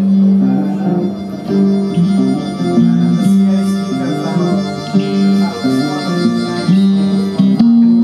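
Recorded music played back over a hi-fi stereo system's loudspeakers in a demonstration room: a melody of held notes changing pitch every second or so.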